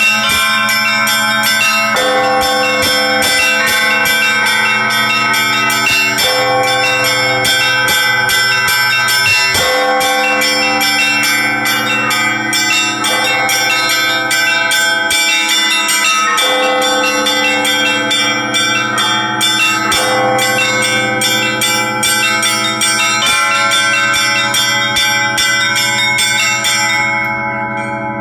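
Set of church bells rung by a single bell ringer in the Russian manner: rapid strokes on the small treble bells over the steady hum of the larger bells, with the middle bells' pattern shifting every few seconds. Near the end the small bells stop and the larger bells ring on.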